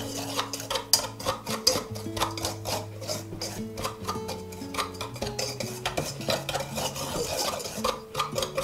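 A pastry blender stirring dry flour mixture in a speckled mixing bowl: rapid scraping with frequent clicks as it knocks the bowl. Soft background music with held notes plays underneath.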